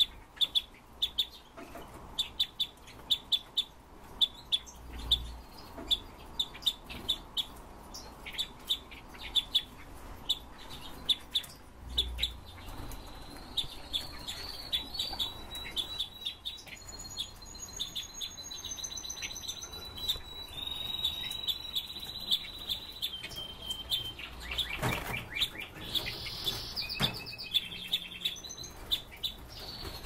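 Red-billed leiothrix (Pekin robin) calling: a steady series of short, high chirps, several a second, with longer whistled phrases in the middle and a louder burst of song about 25 seconds in.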